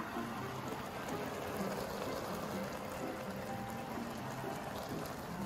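Sukiyaki simmering in a shallow pot on a portable gas stove: broth bubbling and sizzling steadily around the beef and vegetables.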